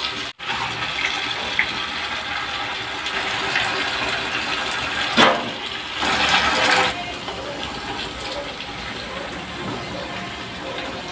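Tofu deep-frying in hot oil in an electric nonstick pan: a steady sizzle. About five seconds in, and again from about six to seven seconds, the sizzle grows louder in short bursts as tongs move the pieces in the oil.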